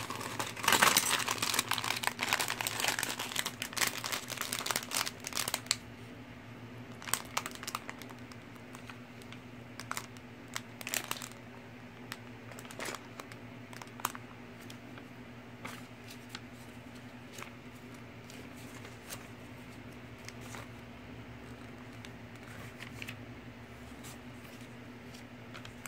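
Clear plastic bags full of plastic building bricks crinkling as they are handled. The crinkling is busy for the first several seconds, then comes only in scattered short crinkles over a steady low hum.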